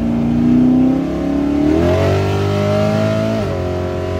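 Drag car's engine heard from inside the stripped cabin, pulling hard with the revs climbing, then dropping sharply about three and a half seconds in.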